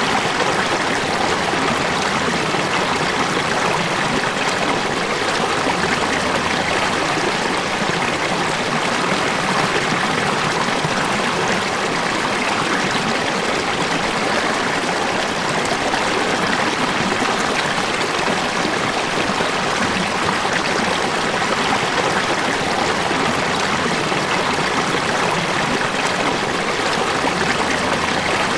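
Running water of a river or stream, a steady rushing flow without change.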